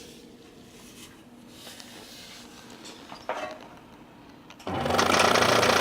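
A few faint knocks, then near the end a scroll saw switches on and runs steadily, its blade reciprocating with a loud, even buzz.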